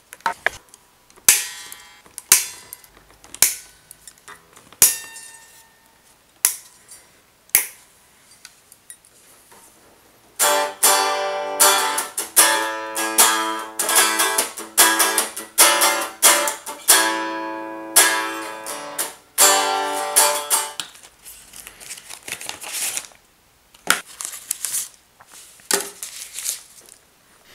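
Gibson ES-335 electric guitar freshly strung with Cleartone strings: notes struck about once a second and left to ring out, then about ten seconds of strummed chords, then a few more single struck notes.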